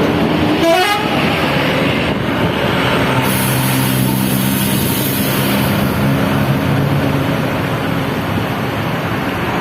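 Tour bus basuri 'telolet' musical horns sounding over passing bus engine and road noise. A short rising sweep of notes comes about half a second in, and a held multi-note horn chord follows from about three seconds in to about seven and a half.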